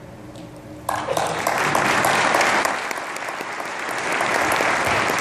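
A crowd applauding, starting suddenly about a second in with many hands clapping at once.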